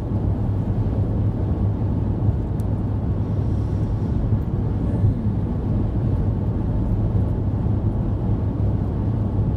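Steady road and engine rumble heard inside an SUV's cabin while driving on a highway.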